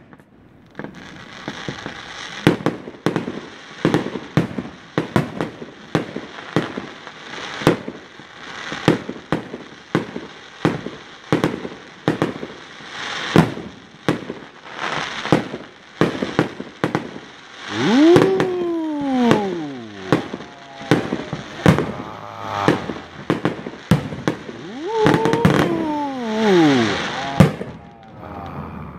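Aerial fireworks shells bursting in a continuous string of sharp bangs, about one or two a second, over a steady crackle. Twice, a drawn-out tone rises briefly and then slides down in pitch: once about two-thirds of the way through and again near the end.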